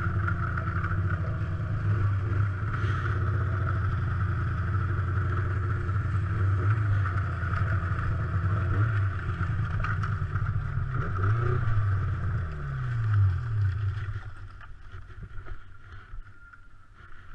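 Snowmobile engine running as the sled crosses the ice, a steady low drone; about eleven seconds in the engine note falls as the sled slows, and about fourteen seconds in the sound drops away to a much quieter idle as it comes to a stop.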